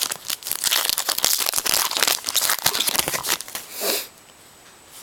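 Card pack wrapper being crinkled and torn open by hand, a dense crackling of foil or plastic that stops about four seconds in.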